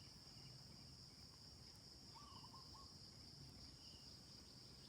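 Faint, steady, high-pitched drone of crickets in the background, with a short trilling chirp about two seconds in.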